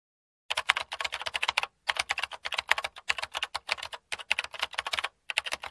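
Computer keyboard typing sound effect: rapid clicking keystrokes in several quick runs, with brief pauses between them.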